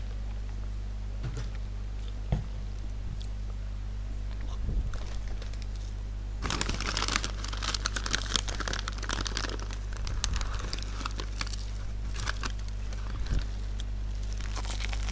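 Paper and plastic food bags crinkling and rustling as they are handled, densest from about six to twelve seconds in and again near the end. A couple of sharp knocks and a steady low hum are also heard.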